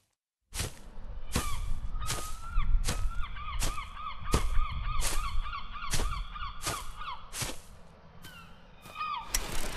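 A flock of birds giving short honking calls over and over, several a second, over a regular beat of short swishes about twice a second. Shortly before the end the calls thin out and a steady hiss takes over.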